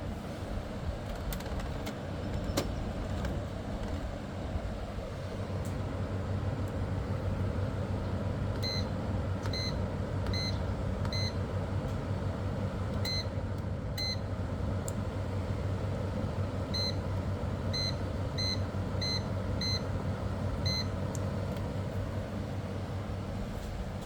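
Mistralvan 3200 camper air conditioner running with a steady hum. From about nine seconds in, about a dozen short, high electronic beeps come in small clusters.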